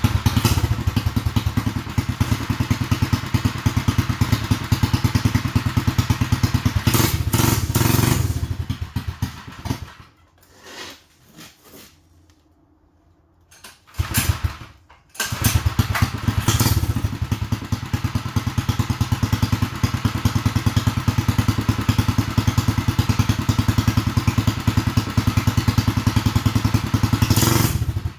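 Mini chopper's upgraded 212cc single-cylinder four-stroke engine running loud through a custom pipe exhaust, with rapid exhaust pulses. It revs up about seven seconds in, stops about ten seconds in, is started again about fourteen seconds in and runs steadily until it cuts off at the end.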